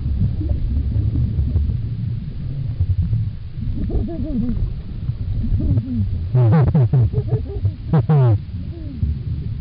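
Underwater sound: a steady low rumble with pitched calls that glide up and down. The two loudest calls come about six and a half and eight seconds in.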